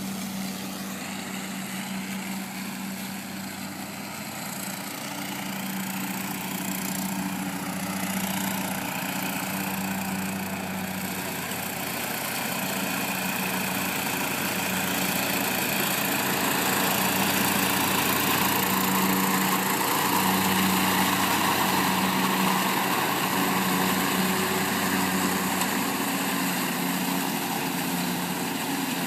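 Riding lawn tractor towing an engine-powered leaf-vacuum cart, running steadily: a constant engine hum under a broad rushing noise, growing louder as the machine comes close.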